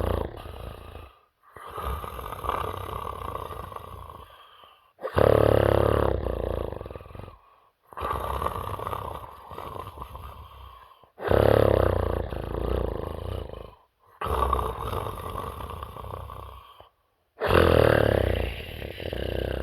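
A sleeping person snoring heavily in a slow, regular rhythm: a loud snore followed by a quieter, longer rasping breath, with a short pause between cycles, repeating about every six seconds, three full cycles.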